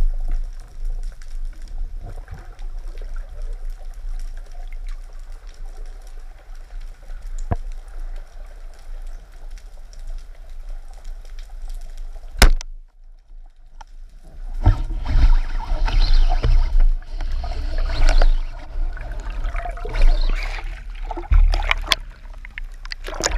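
Underwater ambience through a camera housing: a steady low rumble with faint scattered ticks. About halfway there is one sharp crack, the band-powered speargun firing, followed by loud churning, bubbling water as the diver moves up through the water.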